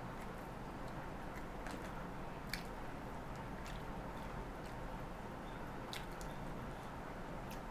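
A person eating rice with the fingers and chewing, with a few short, sharp mouth clicks, the loudest about two and a half seconds in. A steady background hum runs underneath.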